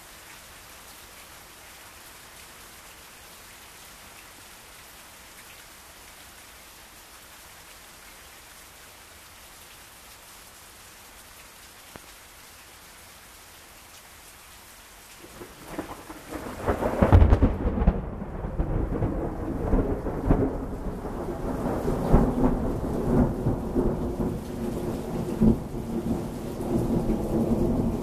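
Steady rain falling, then about fifteen seconds in a crack of thunder breaks out, loudest a second or two later, and keeps rumbling heavily.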